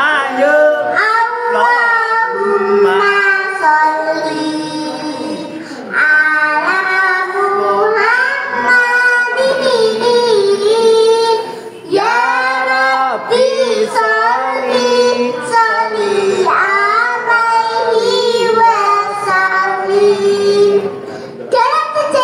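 A young girl singing solo, in phrases of long held, wavering notes, with short breaks about six and twelve seconds in.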